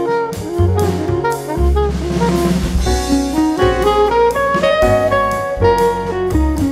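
Background music: jazz led by saxophone over a drum kit, with a steady beat and a cymbal wash about halfway through.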